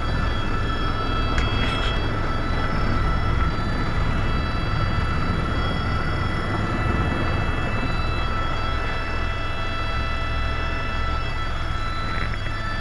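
Turbine tour helicopter heard from inside the cabin during take-off: a steady high turbine whine over a low rotor drone and loud engine and airflow noise.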